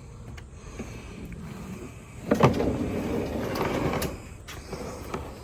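A knock about two seconds in, then a couple of seconds of sliding and rumbling ending in a click: a heavy fridge being shifted along a metal drawer slide.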